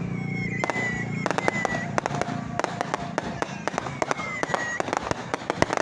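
Fireworks going off: a dense, irregular string of sharp cracks and bangs.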